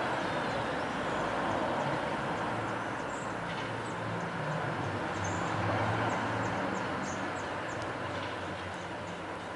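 A steady background rumble with a low hum that swells and fades midway, under a series of short, high chirps from small birds at the nest.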